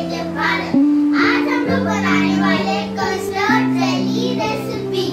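Background music: a song with a singing voice over held chords that change about once a second.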